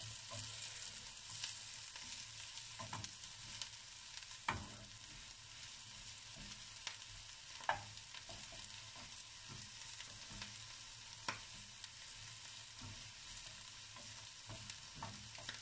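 Curly kale and onion frying in oil in a nonstick pan: a faint, steady sizzle. A wooden spoon stirs and clicks against the pan now and then.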